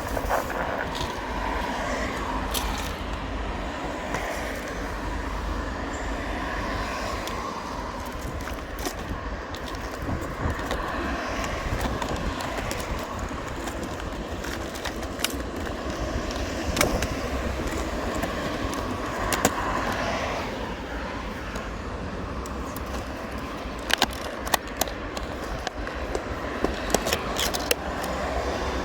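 Small boat's motor running steadily under way, a low continuous rumble, with a few sharp knocks near the end.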